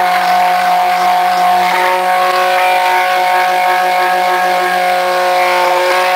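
Stick blender running steadily in a plastic jug of soap batter, a constant motor hum with several fixed pitches. It is blending batter that has thickened very fast, to bring it back to fluid, a speed-up the soaper puts down to the fragrance oil.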